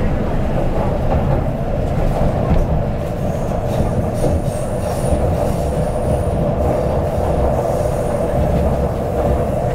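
MTR CNR Changchun EMU (C-train) motor car running steadily between stations: a continuous low rumble of wheels on rail under a steady mid-pitched drone, with a faint high whine about halfway through.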